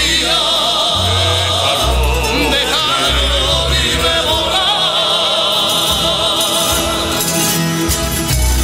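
Background music: a song with a sung voice held in long notes with strong vibrato over sustained bass notes.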